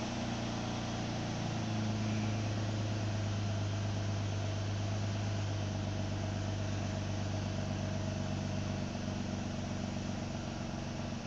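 2011 Nissan Murano's 3.5-litre V6 petrol engine idling steadily, heard from inside the cabin.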